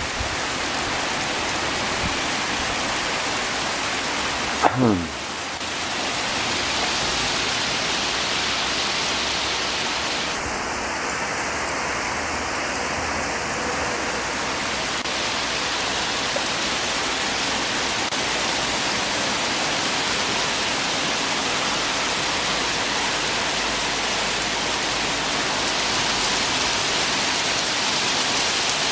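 Torrential rain pouring down steadily, a dense even hiss of the downpour. About five seconds in, a brief sound glides quickly down in pitch.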